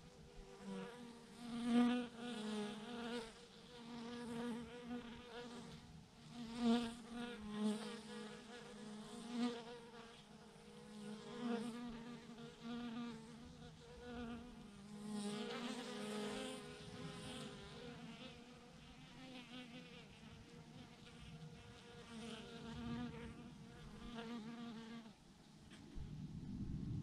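A mass of honeybees buzzing around a swarm cluster on a branch, a steady hum that swells and fades again and again as single bees fly close past. A low rumble comes up near the end.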